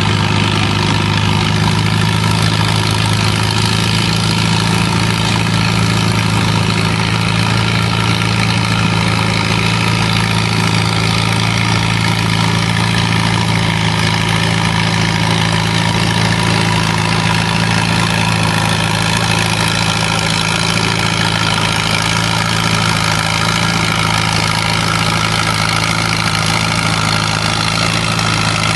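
Farm tractor engines idling steadily, with no revving or change in pitch.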